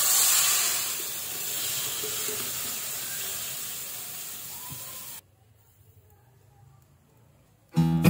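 Ground chili, shallot, garlic and tomato spice paste sizzling as it is poured into a hot wok without oil, the hiss fading over about five seconds before it cuts off suddenly to near silence. Acoustic guitar music starts near the end.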